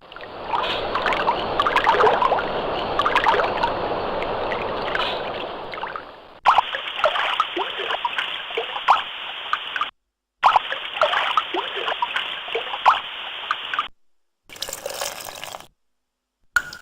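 Water trickling and splashing, heard as a run of separate sound-effect clips cut apart by short silences. A steady stream of about six seconds comes first. Then a spattering trickle plays twice, and a brief different water clip comes near the end.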